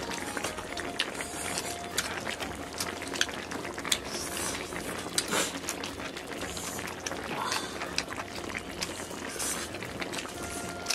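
Close-up eating sounds: wet chewing and lip smacking of a mouthful of rice, with frequent short clicks of wooden chopsticks against the bowl.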